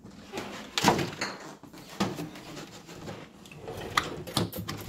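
Knocks and clicks from handling a plastic gallon milk jug on a kitchen counter: a sharp knock about a second in, more at intervals, and a quick run of clicks near the end as its plastic screw cap is twisted.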